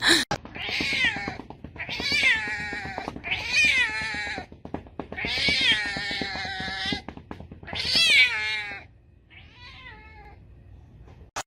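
A domestic cat giving a string of about six long, drawn-out meows with wavering pitch, the last one fainter.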